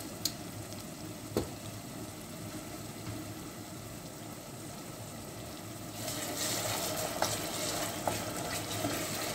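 Diced onions with ginger and garlic paste sizzling in hot oil in a stainless steel pot. About six seconds in the sizzle grows louder as a spatula stirs the onions, with a few light knocks against the pot.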